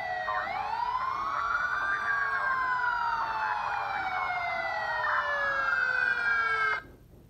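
Two emergency-vehicle sirens wailing together: one rises and falls slowly in pitch while the other glides steadily down. Both cut off suddenly near the end.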